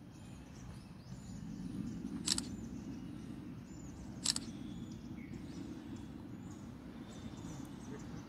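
Outdoor ambience with a low rumble of wind-like noise and faint, repeated bird chirps. Two sharp clicks stand out, about two and four seconds in.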